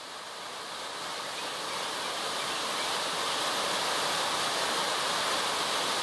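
Mountain stream cascading down a rocky forest waterfall: a steady rush of white water that fades up over the first few seconds and then holds even.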